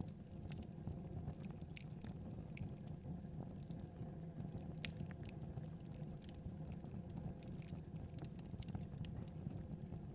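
Wood fire burning: a steady low rumble of flames with scattered sharp crackles and pops from the logs.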